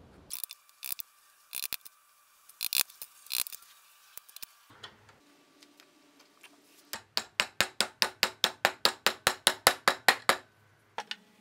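A mallet tapping a dry-fitted hand-cut wooden dovetail joint together in a quick even run of about seven strikes a second, growing louder, to seat the pins fully into the tails. Before it come a few scattered clicks and knocks as the wooden parts are pressed together by hand.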